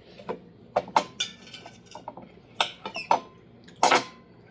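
Cutlery clinking and scraping against plates during a meal: a string of short, sharp clicks at uneven intervals, the loudest about a second in and near the end.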